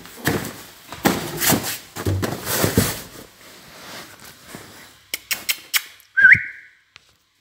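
Scuffling and rustling noise for the first few seconds, a run of quick sharp clicks about five seconds in, then one short whistle that dips and rises, typical of a person whistling to call a dog.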